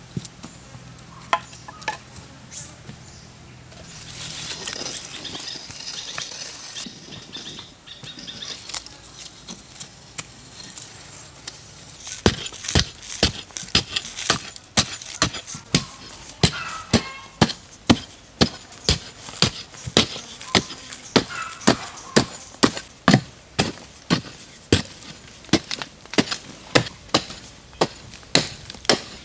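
Long-handled digging tool chopping down into sandy earth again and again, about two strikes a second, beginning partway through. Before that come a few scattered knocks and a stretch of rustling.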